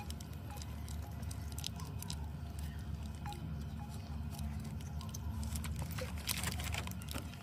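Plastic sauce sachet crinkling and rustling as it is torn and squeezed out, with scattered small clicks and a denser rustle about six seconds in.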